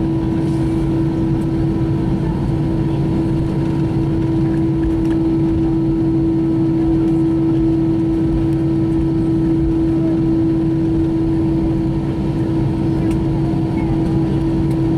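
Airbus A320 cabin noise while taxiing: the jet engines running at idle as a steady hum with one strong constant tone over a low rumble, heard from inside the cabin.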